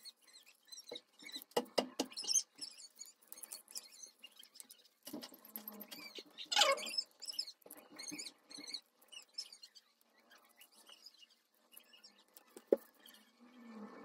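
Close-up crackling, scratching and peeling as thin adhesive paper backing strips are picked up and pulled off a sand-art board by fingers and a pin, with a louder squeaky peeling stretch about halfway through and a single sharp click near the end.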